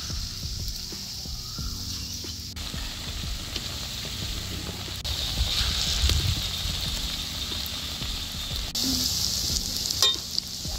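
Lentil fritter batter (dal bora) deep-frying in hot oil in a steel kadai, sizzling steadily as more pieces are dropped in by hand. Near the end a metal spatula clicks against the pan.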